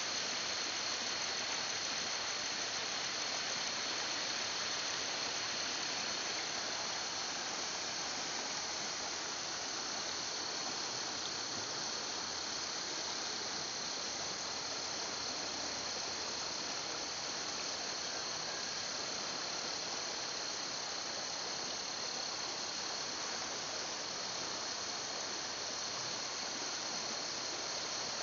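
Steady high-pitched drone of insects, with a constant whine, over an even rushing hiss from a flooded, fast-flowing muddy river.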